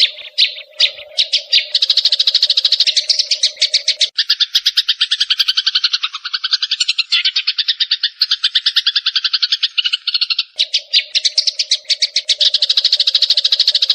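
Eurasian tree sparrows chirping in a dense, rapid chatter of about ten chirps a second. The chatter shifts to a lower, different pattern about four seconds in and goes back near the end.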